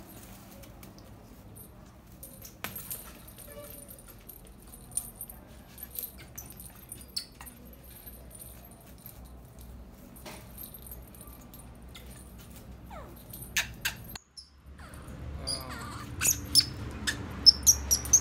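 A pet monkey clambering on netting and a metal rail: faint scattered taps and rustles. Near the end comes a quick run of short, high-pitched chirps, the loudest sounds here.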